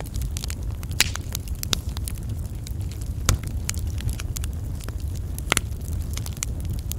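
Wood fire crackling and popping over a steady low rumble, with a few louder sharp pops about one, three and five and a half seconds in.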